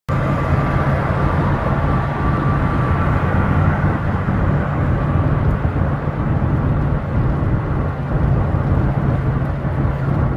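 A loud, steady machine drone with a low hum, starting suddenly and cutting off sharply after about ten seconds.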